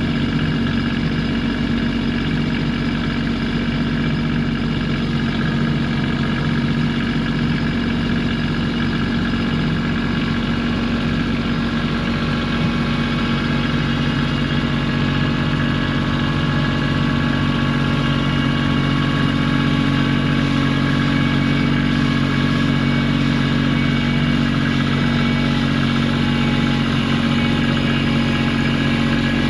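A vehicle engine idling steadily at an even, unchanging speed.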